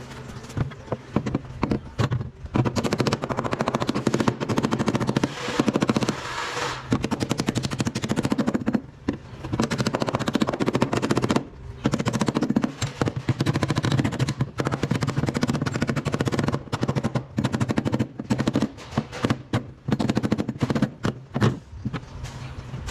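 Rapid, repeated hammering on the car's sheet-metal floor pan and rear body panel, knocking the damaged metal back into shape, in bursts with a few short pauses.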